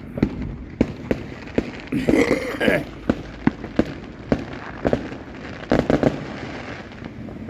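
Fireworks going off: a steady run of sharp bangs at irregular intervals, about two a second.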